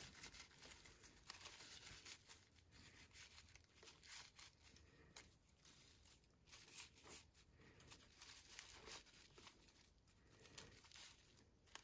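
Faint, scattered rustling and crinkling of raffia yarn being pulled and knotted into a bow, the strand rubbing against a crocheted raffia basket.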